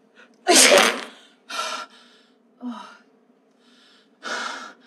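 A loud, wet, spluttering burst about half a second in: a woman's sudden explosive diarrhea spraying the tiled wall behind her. After it come three short gasps.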